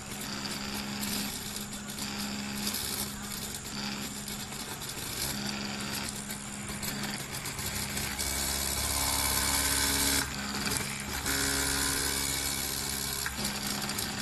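Stepper motors of a home-built CNC pen plotter, salvaged from an old printer, driving the pen carriage as it draws. They whine and buzz in tones that start, stop and change with each stroke, and grow louder and hissier from about eight to thirteen seconds in, with a short break near ten seconds.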